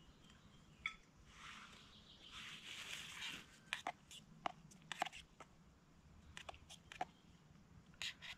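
Faint soft rushing for about two seconds, then a dozen or so light, irregular clinks and taps of a spoon stirring in a steel camping mug.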